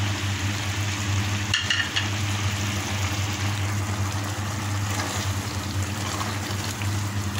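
Beef and tomato masala bubbling in an open pressure cooker as its stock cooks down, with a silicone spatula stirring through it. A steady low hum runs underneath.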